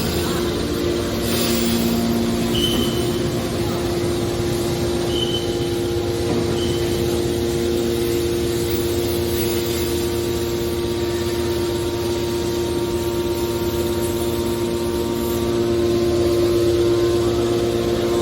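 Hydraulic metal baler's motor and hydraulic pump running with a steady hum, with three brief high chirps in the first several seconds.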